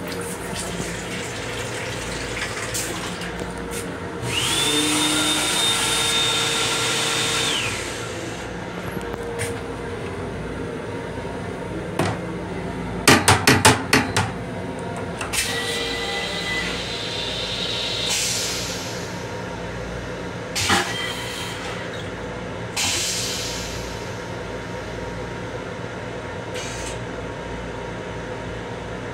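Steady running hum of an M7 electric railcar heard inside its small restroom. Over it come two hissing stretches of a few seconds each, the first carrying a high steady whistle, and a quick run of sharp clicks between them.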